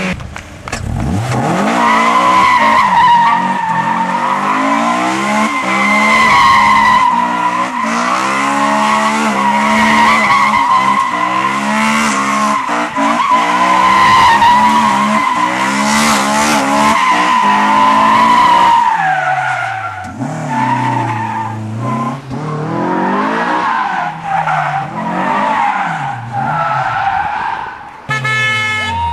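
A car's rear tyres spinning and sliding on asphalt in a burnout, squealing in one long steady screech over the revving engine for about eighteen seconds. Then the squeal stops and the engine revs up and down several times.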